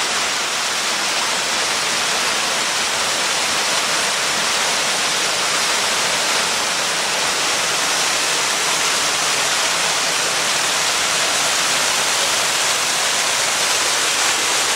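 Waterfall pouring, a loud steady rush of falling water.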